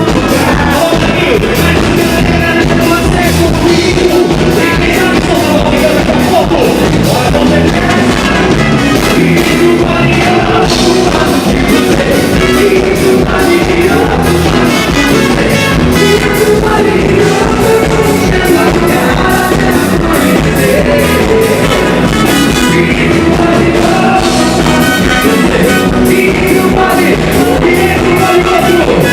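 Live band music with a singer, playing a southern Brazilian arrasta-pé dance number over a steady, driving beat.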